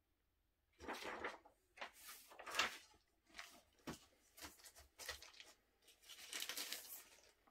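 Vinyl record sleeves, the paper inner sleeve and cardboard jacket, rustling and sliding as they are handled: a series of short dry swishes, with a sharper tap about four seconds in.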